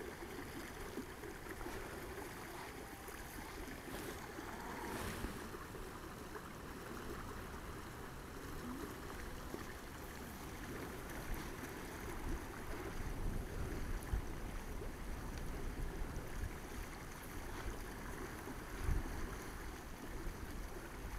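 Steady rush of a fast-flowing river, with wind buffeting the microphone in low rumbling gusts that grow stronger in the second half.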